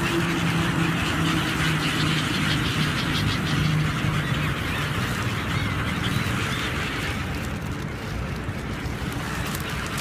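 A flock of gulls calling in short squeals over a steady low engine drone and a constant rushing noise, heard from a boat.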